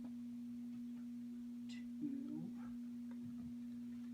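Steady low-pitched hum, with a short high click a little before the middle and a brief low knock just after it.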